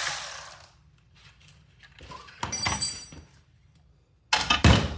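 A power tool running as the muffler bolt is undone stops within the first second. Then comes metallic clinking with a brief ring from the Honda Grom's exhaust parts, and a louder clunk near the end.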